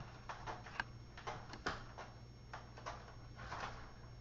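A cat's claws hooking and scraping on a sliding screen door's mesh as it climbs, giving irregular light clicks and rattles of the screen, several a second.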